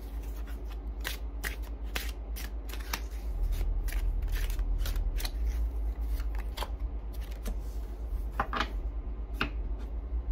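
A deck of tarot cards being shuffled by hand: a run of irregular soft card clicks and slides. A low hum runs underneath, growing louder about three seconds in.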